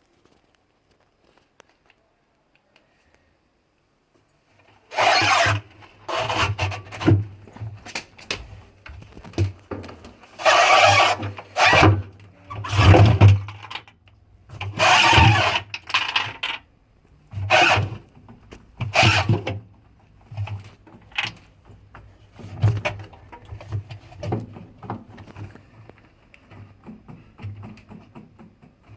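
Whirlpool washing machine starting up about five seconds in, with a steady low motor hum and loud, irregular grinding and scraping bursts about once a second. The noise comes from a broken drum spider, cracked at its base where it joins the shaft, which also keeps the drum from turning.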